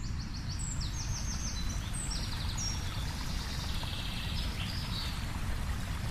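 A steady low rumble of a waterfall's rushing water. Over it a small songbird sings a string of short, fast trills, each phrase on a different high pitch and stepping lower.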